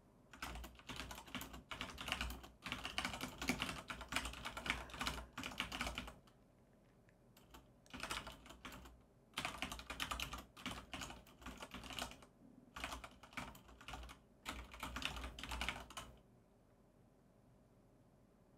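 Typing on a computer keyboard: quick runs of key clicks broken by short pauses, stopping about two seconds before the end.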